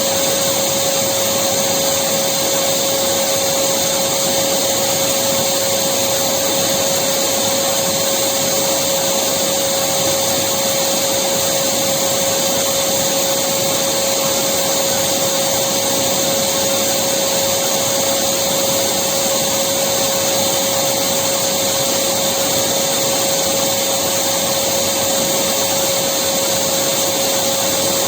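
Electric vacuum cleaner running continuously: a steady whooshing motor noise with a constant whine, no change in speed.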